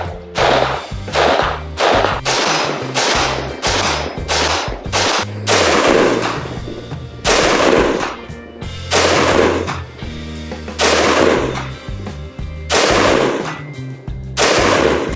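BCM lightweight mid-length AR-15 rifle firing: about two shots a second through the first five seconds, then single shots a second or two apart. Background music with a steady bass line runs underneath.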